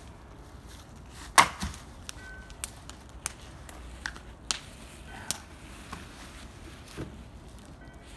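A single heavy sledgehammer blow on a log about a second and a half in, followed by a few lighter knocks and clicks as the wood and hammer are handled.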